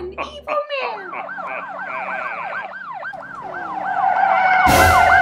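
Police sirens, more than one at once: a fast yelp sweeping up and down about four times a second, joined by a steadier wail that grows louder. A short, loud burst of noise comes near the end.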